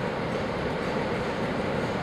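Class 47 diesel locomotive's Sulzer twelve-cylinder engine running steadily as the locomotive draws slowly into the platform.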